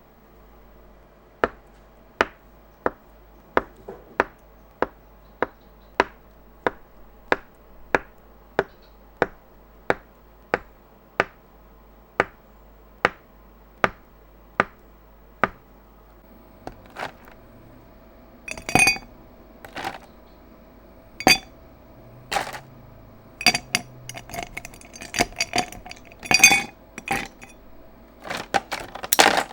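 A utensil clinking against a glass while mixing dalgona coffee. For the first half the clinks come evenly, about one and a half a second; after that they turn faster, louder and irregular.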